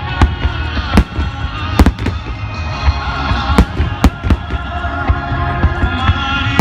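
Fireworks shells bursting in an irregular string of sharp bangs, over music playing throughout.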